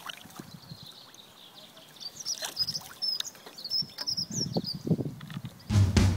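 Small birds chirping with short high calls, joined by low rumbles from about four seconds in. A drum-heavy music track cuts in near the end.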